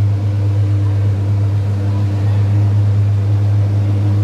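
Engine idling steadily: a loud, even low drone that neither rises nor falls.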